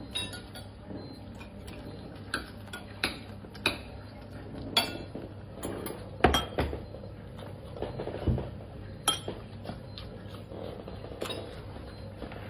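A metal fork clinking and scraping against a ceramic bowl during eating: a dozen or so sharp, irregular clinks, the loudest a little past the middle.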